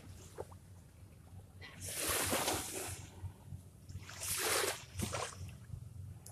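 Small waves washing up on a sandy shore: two hissing swashes, each about a second long, a couple of seconds apart.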